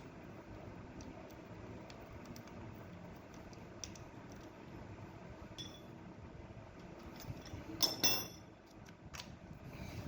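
Small metal parts and tools being handled: scattered light clicks, then two sharp metallic clinks about eight seconds in that ring briefly.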